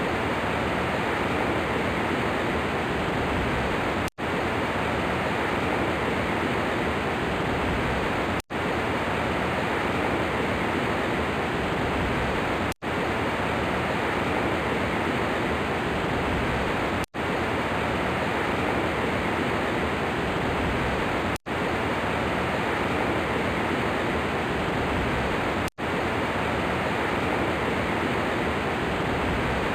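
Steady hiss of heavy rain falling, broken by a very brief gap about every four seconds.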